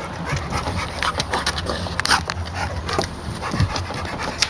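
Pet dogs play-fighting: dog vocal sounds mixed with many short, sharp scuffling clicks, and a brief falling low sound about three and a half seconds in.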